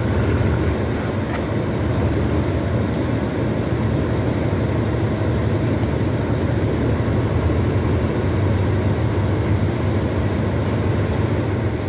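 Diesel locomotive idling at the head of a stationary passenger train: a steady low engine rumble.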